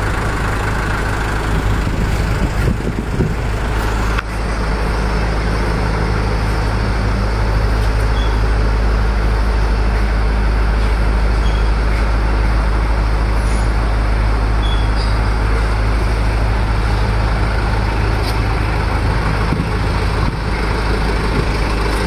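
A vehicle engine idling steadily, a constant deep hum that gets a little louder about four seconds in.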